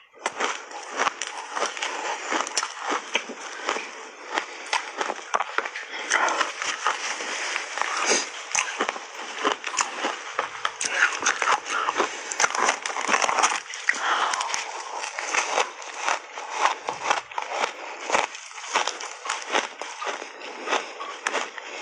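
Chewing and crunching a mouthful of ice coated in matcha milk powder: dense, continuous crackling crunches.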